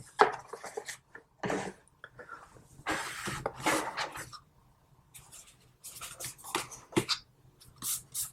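Hands handling a watch box and its packaging: rubbing and rustling with small knocks and clicks, one longer stretch of rubbing about three seconds in.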